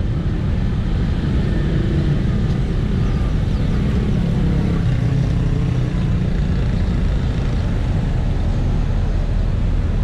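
Steady city street traffic noise: a low, even rumble of passing motor vehicles.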